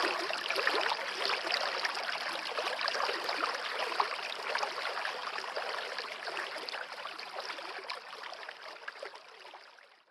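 A forest stream flowing and babbling, fading out over the last few seconds.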